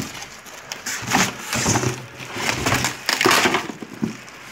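Bubble-wrap packaging crinkling and crackling as it is handled and lifted, in irregular bursts.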